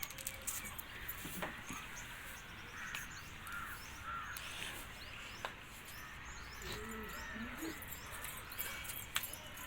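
Crows cawing, a few calls in quick succession around three to four seconds in, over faint background noise.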